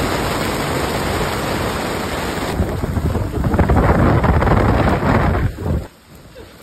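Heavy rain and gusting wind of a tropical squall on a sailboat, with the wind buffeting the microphone in heavy rumbling gusts. It drops away suddenly near the end.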